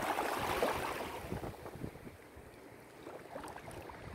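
Wind buffeting the microphone over open sea water. A loud rushing gust fades over the first second or two, then low gusty rumbling carries on at a lower level.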